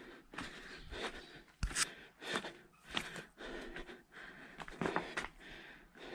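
A person breathing hard and panting while climbing a steep slope, with scuffing footsteps and small knocks underfoot.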